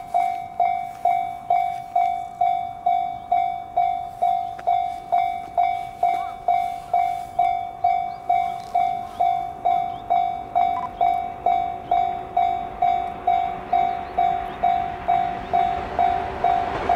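Japanese railway level-crossing warning bell ringing: an electronic ding repeating evenly about three times a second, signalling an approaching train. The rumble of the approaching train rises faintly near the end.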